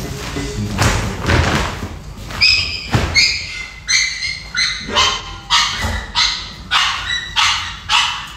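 A dog barking in a steady run of short, high yips, about two a second, starting a couple of seconds in after some rustling and thumps.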